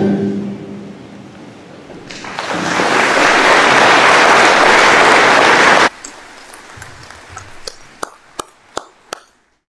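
The final chord of the musical piece dies away in the first second, then audience applause in a large hall swells in about two seconds in and is cut off abruptly near six seconds. A few scattered sharp clicks follow near the end.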